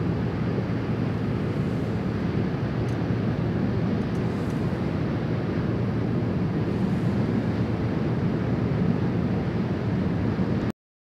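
Steady low rumbling outdoor ambience, with no distinct event, that cuts off suddenly near the end.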